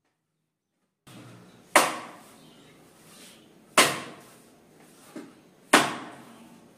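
Chapati dough being beaten down into a steel bowl while it is kneaded, which makes the chapatis soft: three sharp thuds about two seconds apart, with a lighter knock between the last two and soft kneading sounds in between.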